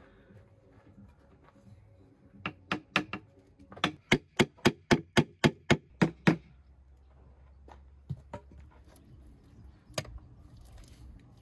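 A run of about fourteen sharp, hard knocks on masonry, about four a second. There are two groups: four knocks, a short pause, then about ten more.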